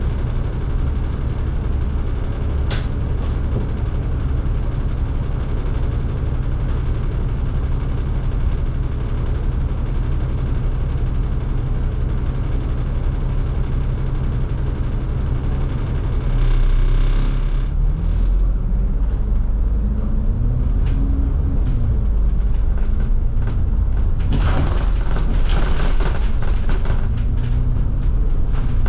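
Double-decker bus heard from inside the cabin: a steady low engine and road drone. About halfway through the engine gets louder and its pitch rises and falls as it works through the gears. Short rattles and clatter from the body come near the end.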